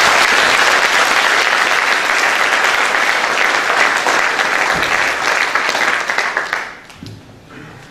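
An audience applauding: dense, steady clapping that dies away near the end.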